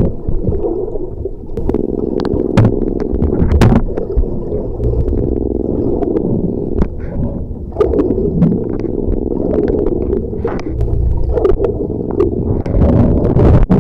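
Muffled underwater sound through a camera housing: water sloshing and gurgling over a steady low hum, with scattered sharp clicks and knocks.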